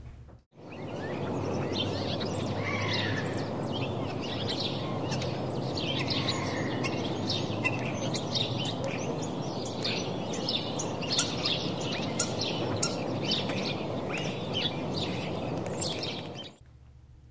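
Many small birds chirping and singing over a steady background hiss, like an outdoor birdsong ambience. It starts about half a second in and cuts off suddenly near the end.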